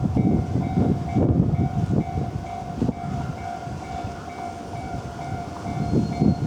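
Japanese level-crossing warning bell ringing over and over in quick even strokes, while a train rolls past with a heavy rumble and the clatter of wheels on the rails.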